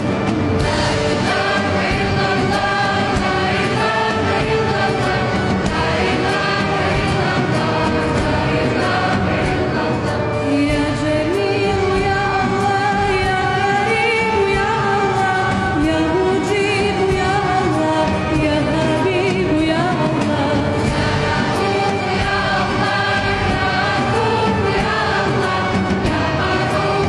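Music with voices singing together, choir-like, over a regular beat.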